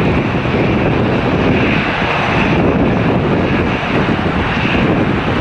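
Jet engines of an Airbus A320-214 running steadily as it taxis onto the runway, mixed with a steady rush of wind buffeting the microphone.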